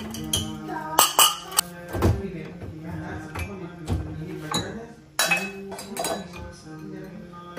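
Glass and ceramic bowls clinking against each other and the wire rack as they are lifted out of a dishwasher's upper rack, a string of separate clinks and knocks. Background music plays underneath.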